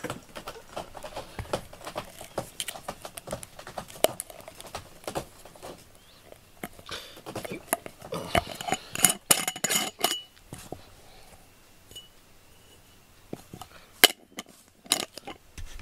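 Glass jar being handled and its lid fitted: small scratching and rustling, then a run of clinks with one brief ringing clink about ten seconds in, and two sharp clicks near the end as the lid goes back on.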